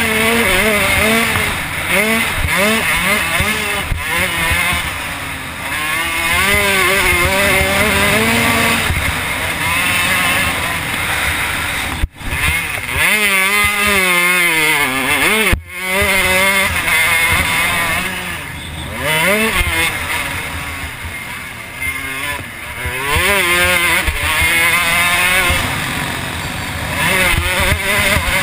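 Motocross bike engine heard from on the bike under race riding, its pitch rising and falling again and again as the throttle opens and shuts through the gears and corners. The sound cuts out for an instant twice, about twelve and fifteen and a half seconds in.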